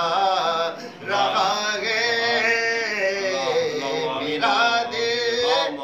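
A man singing a naat unaccompanied, in long held notes that bend in pitch, with a brief breath about a second in.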